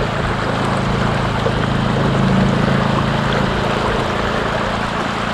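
A boat motor running at a steady speed, a low even drone, over the rushing of water along the kayak hulls.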